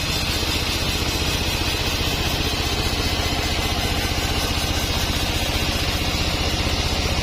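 Sawmill's engine running steadily at a constant speed with an even, fast pulse.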